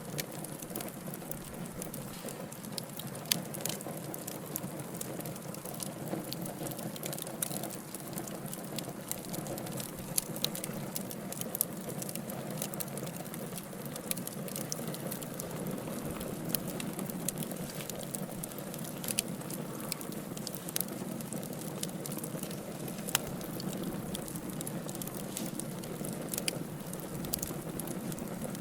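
Wood fire burning in a fireplace: a steady low hiss and rumble of flames with frequent irregular crackles and pops from the burning logs, a few sharper and louder than the rest.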